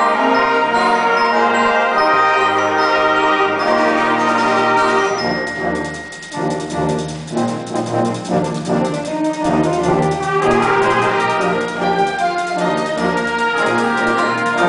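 High school concert band playing, with the brass to the fore. The band drops back briefly about six seconds in, then builds again.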